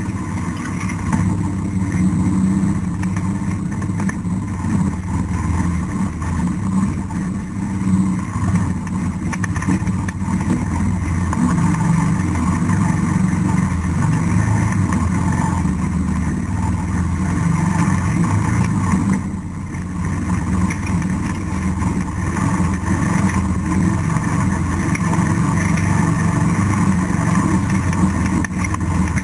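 ATV engine running steadily under throttle while riding a trail, with a brief easing off about two-thirds of the way through.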